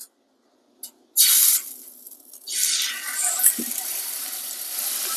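Chicken thighs sizzling as they are laid skin side down into hot avocado oil in a skillet. A loud sizzle about a second in, a second one as the next piece goes in, then a steady frying hiss; the sizzle is the sign that the oil is hot enough.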